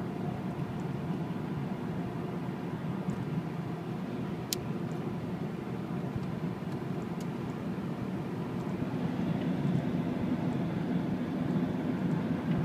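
Car engine and tyre noise heard from inside the cabin while driving: a steady low drone that grows a little louder about two-thirds of the way through. A single faint click comes about halfway in.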